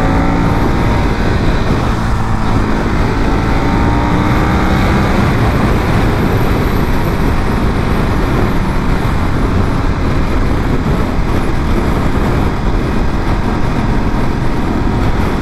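Ducati 1198's V-twin engine pulling at freeway speed under loud, steady wind and road noise on the rider's mic. The engine note rises in pitch for the first couple of seconds as the bike accelerates, then sinks into the wind rush.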